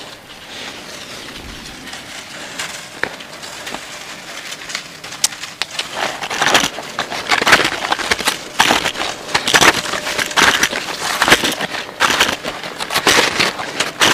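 Footsteps crunching in deep snow, growing louder and sharper about six seconds in, with a crunch at a walking pace.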